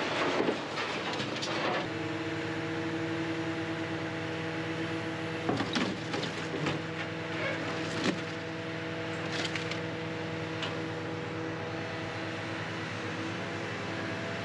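A diesel engine running steadily with a low hum, after a couple of seconds of clattering. Several sharp metal clanks come between about five and ten seconds in.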